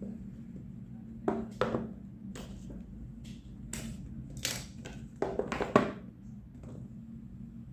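Packaging being handled while a neckband earphone box is unboxed: a string of short crackling, crinkling rustles, the loudest about three-quarters of the way through, over a steady low hum.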